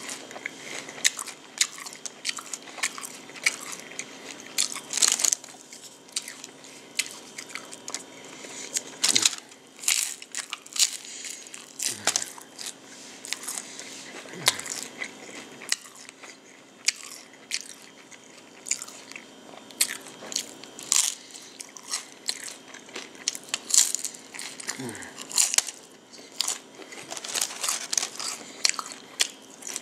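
Crunchy hard-shell tacos being bitten and chewed close to the microphone: the fried corn shell cracks in many sharp, crisp crunches, with chewing between them.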